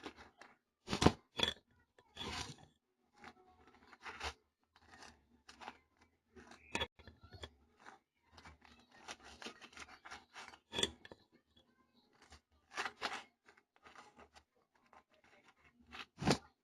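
A knife scraping and tapping as strawberry jam is spread on toasted bagels: a run of short, irregular scrapes and clicks. The loudest comes about a second in, and another near the end.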